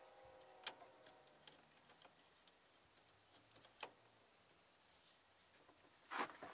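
Scattered light clicks and taps of a crescent wrench on a metal A/C line fitting, as the wrench is set on the bolt and worked, with a louder metallic clatter near the end.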